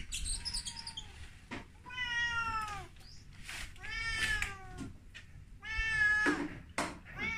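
Korat cat meowing over and over: three drawn-out meows about two seconds apart, each falling in pitch, with a faint short one early and another starting near the end.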